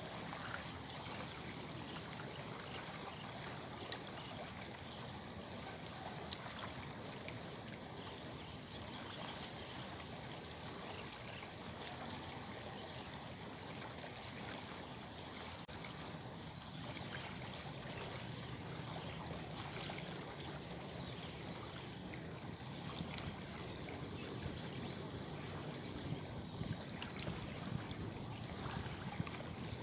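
Fast, muddy river water rushing and running steadily, with a faint high thin tone that comes and goes.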